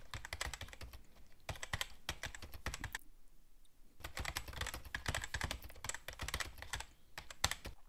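Typing on a computer keyboard: rapid key clicks in two runs, with a pause of about a second in the middle.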